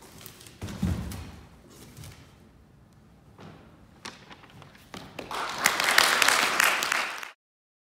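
Cardboard boxes thumping and rustling as they are handled, with a dull thud about a second in. Then, at the end of the performance, a small audience applauding for about two seconds, cut off abruptly.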